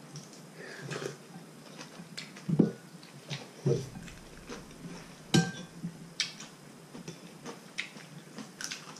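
Eating noodle soup: scattered chewing and slurping noises, with a few clinks of spoon and chopsticks against ceramic bowls, the sharpest about five seconds in.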